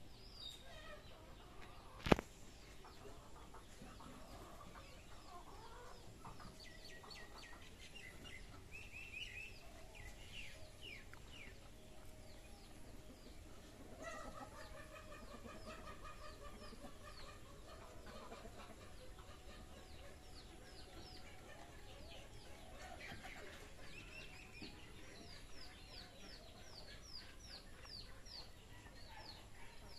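Free-range chickens clucking and calling, with many short, high, falling chirps through most of it. A single sharp click about two seconds in is the loudest sound.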